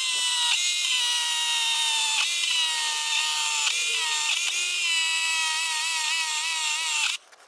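Harbor Freight electric chainsaw running with a steady high whine, its pitch sagging briefly several times as it bogs down cutting into an ash log, then cutting off suddenly near the end. The saw is too weak for this cut.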